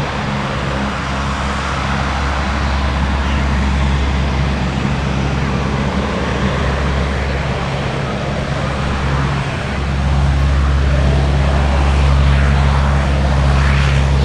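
Lockheed P-3 Orion's four Allison T56 turboprop engines running as it taxis close by: a steady low propeller drone with several humming tones, getting louder about ten seconds in.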